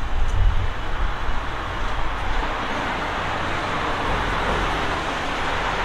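City street traffic: a steady hiss of passing cars, with a low rumble in the first second or so.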